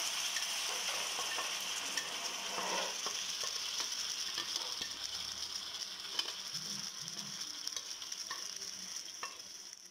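Pressure-cooked chicken pieces sizzling in hot oil in an iron kadai, a steady hiss with scattered small pops, slowly dying down as the juices cook off.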